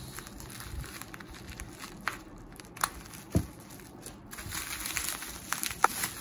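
Plastic bubble wrap crinkling and rustling as a wrapped package is handled, with a few sharp clicks scattered through it.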